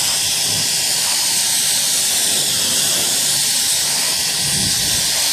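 Pressure washer lance spraying a steady high-pressure jet of water onto a car's lower bodywork and wheel, rinsing off snow foam. It makes a continuous loud hiss.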